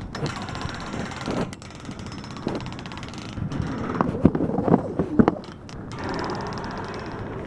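A stick dragged and tapped along a chain-link fence, rattling the wire mesh in quick clicks, with several louder knocks about four to five seconds in.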